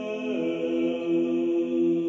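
A voice chanting a sustained mantra note over the steady ring of a crystal singing bowl; the voice glides down to a lower held note about a third of a second in while the bowl's tone stays put.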